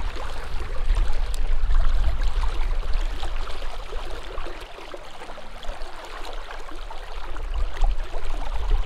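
Steady rush of river current over a riffle, with an uneven low rumble underneath.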